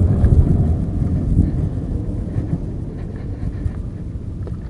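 Strong wind buffeting the microphone of a chest-mounted action camera: a loud, even low rumble that eases somewhat toward the end.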